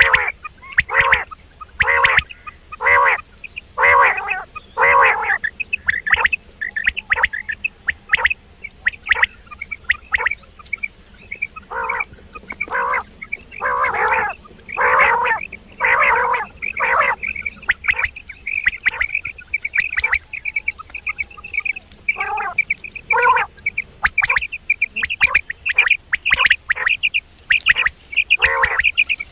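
Quail calling over and over: short, sharp notes, mostly about one a second, with a run of quicker, fainter notes near the middle before the steady calling picks up again. A faint steady high whine sits under the calls.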